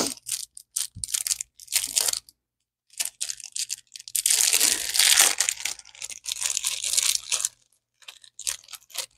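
Small plastic packaging crinkling and being torn open by hand, in short rustling bursts, with one longer, louder tearing stretch about four seconds in.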